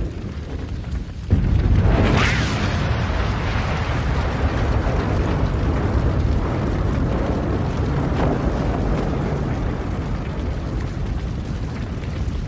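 Burning fuel, then a car exploding in a sudden loud blast about a second in, followed by the fire burning steadily.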